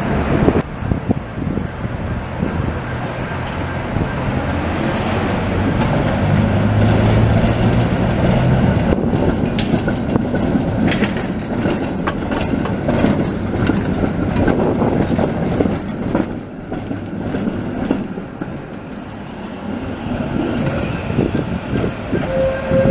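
Street trams passing close on street track: the low hum of the motors swells and fades while the steel wheels clatter and knock over rail joints and switches. A steady tone starts near the end.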